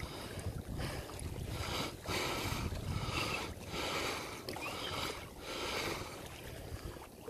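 A kayaker's hard, panicked breathing, about one loud breath a second, over the wash of water and wind around a kayak at sea.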